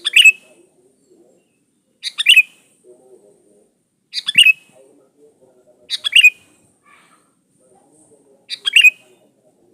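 Sooty-headed bulbul calling: a short, bright burst of notes repeated five times, about every two seconds.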